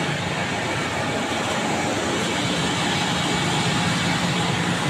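Steady mechanical drone: a constant low hum under an even hiss, unchanging in level.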